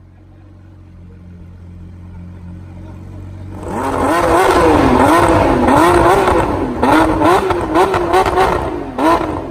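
Lamborghini Aventador SVJ's V12 idling, then about three and a half seconds in it is revved hard several times, the pitch swinging up and down with each blip. Sharp exhaust pops and cracks come in the later revs before it settles back to idle near the end.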